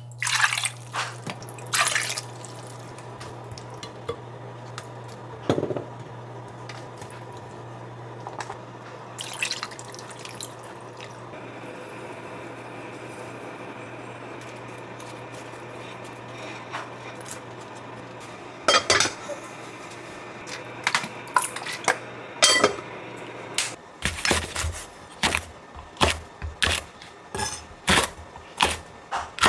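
Liquid is poured into a pot of chicken and potatoes, with scattered clinks of dishes, over a low steady hum that stops about 24 seconds in. Then a kitchen knife chops green chili peppers on a wooden cutting board, about two sharp knocks a second.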